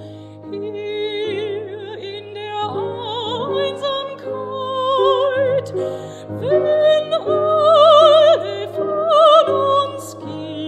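Mezzo-soprano singing a German art song (Lied) with vibrato over piano accompaniment. The voice climbs in pitch and is loudest on held high notes about eight seconds in, then falls back.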